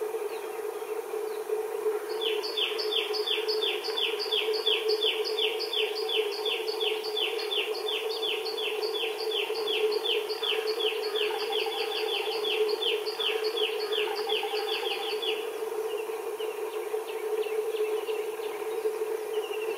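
A bird calling a long, even run of short downward-slurred notes, about three or four a second, for some thirteen seconds before it stops, with a few fainter notes after. A steady low hum runs underneath.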